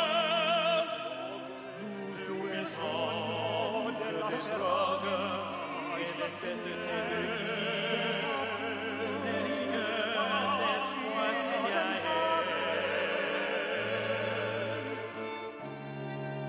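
Operatic singing with a strong vibrato over instrumental accompaniment of long-held low notes, part of an original opera score.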